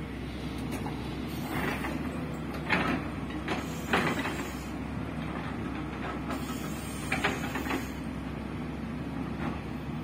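Excavator's diesel engine running steadily at a construction site, with a few short sharp metal clanks from the machine working.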